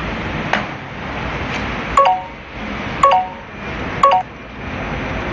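Sharp metallic clinks from the hand-operated apron controls of a heavy-duty face lathe, about a second apart. Each of the louder clinks is followed by a short ringing tone. A steady background noise runs under them.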